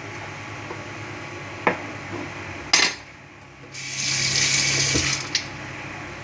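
A kitchen tap running for about a second and a half, then turned off with a click. Before it come a light knock and a louder clatter.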